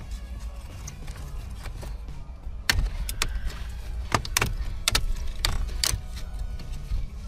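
Plastic dashboard trim panels coming off their clips: a series of sharp clicks and snaps, about six of them, starting a few seconds in, over a low steady hum.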